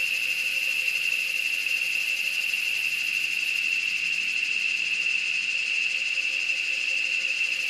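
A steady, high-pitched insect drone that holds unchanged throughout, with no break or change in pitch.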